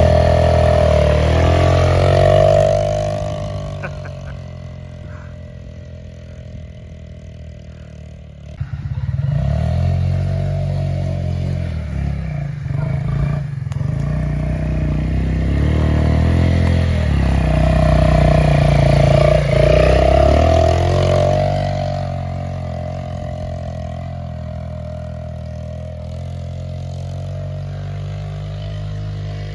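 Small Yamaha ATV engine running under a rider, revving up and easing off so that its pitch rises and falls repeatedly. It is loudest around the middle of the run and drops back to a steadier, lower note near the end. The engine is freshly rebuilt and run in, on its first hill test.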